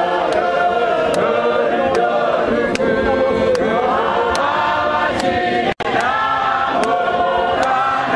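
A large congregation singing a Shona hymn together as a massed choir, with faint sharp ticks keeping time.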